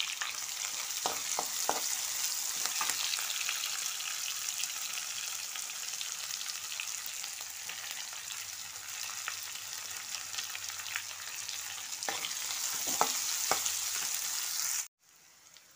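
Freshly added chopped onions sizzling in hot oil in a nonstick pan, with a spatula scraping and stirring them now and then. The sizzle cuts off abruptly about a second before the end.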